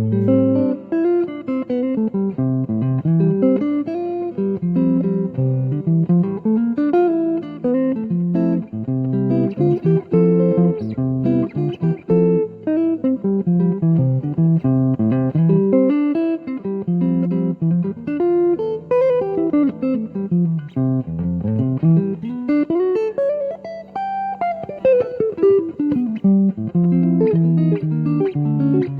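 Electric guitar played through a Henriksen Blu amplifier, a clean jazz-style tone: quick single-note runs that climb and fall, mixed with held chords.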